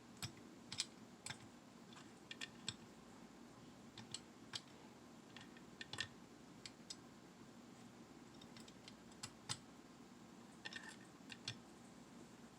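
Faint, irregular small clicks and taps from handling diecast model vehicles in hand, against near silence, with a short flurry of clicks near the end.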